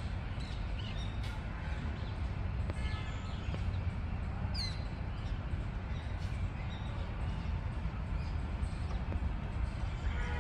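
Outdoor ambience: a steady low rumble with birds calling now and then, one clear high call about four and a half seconds in.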